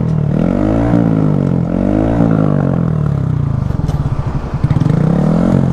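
Honda Grom's 125 cc single-cylinder engine revved three times, pitch rising and falling, with a pulsing idle between the second and third rev. The engine revs freely but the bike gets no power because the drive chain has broken.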